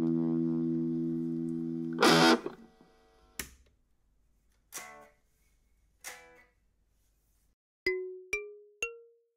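A plucked string instrument played through a Bush transistor radio converted into an amplifier: a held chord rings with a slightly distorted tone, then a loud crackle about two seconds in, then three short faint plucks that die away. Near the end come a few short, bright chime notes.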